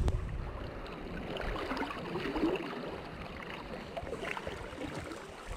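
River current flowing and lapping close by, with a low rumble of wind on the microphone near the start.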